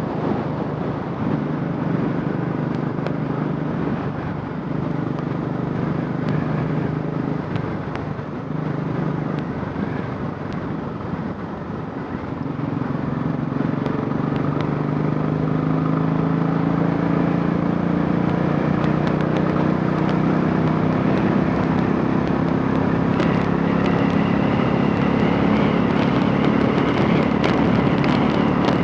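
Royal Enfield Classic 500's single-cylinder engine running on a carburettor converted from fuel injection. Its note gets louder and rises slightly in pitch about halfway through, then holds.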